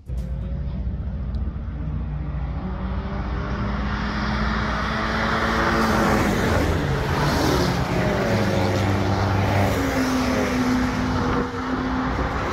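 A line of cars driving past on a race track one after another, several engines running at different pitches over tyre and road noise, fuller from about halfway through.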